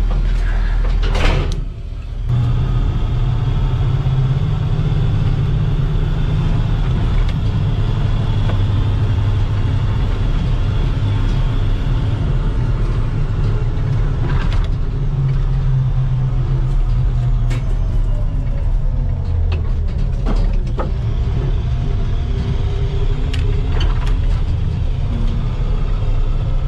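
Armoured military vehicle heard from inside the cab while driving: a steady low engine and road rumble, dipping briefly about two seconds in, with a few short knocks and rattles.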